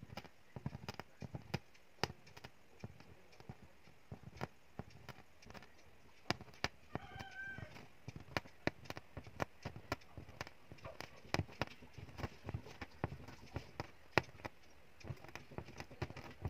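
Aari hook punching in and out of taut fabric while working a chain stitch in zari thread, making sharp, irregular clicks a few times a second. A brief high chirp about seven seconds in.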